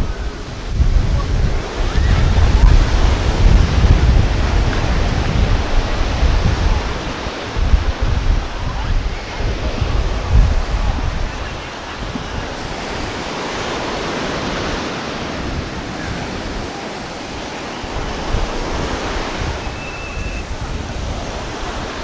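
Ocean surf breaking and washing up a sandy beach. For the first half, gusts of wind buffet the microphone with a heavy low rumble, then ease off, leaving the waves to swell and recede.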